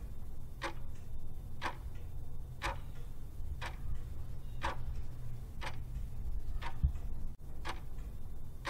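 Clock ticking once a second, a countdown-timer sound effect, over a steady low hum.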